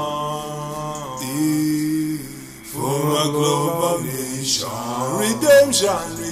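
Reggae song with long, held, chanted vocal notes over the backing music. The sound dips briefly about two and a half seconds in.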